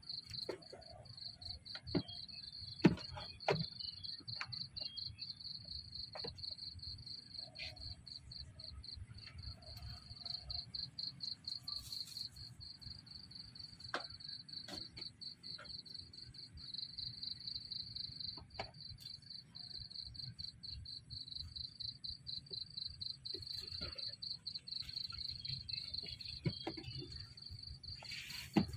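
A cricket chirping steadily in fast, even pulses. A few sharp taps and knocks break in now and then, the loudest about three seconds in.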